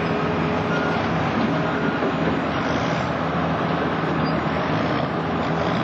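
Steady engine noise from heavy vehicles running.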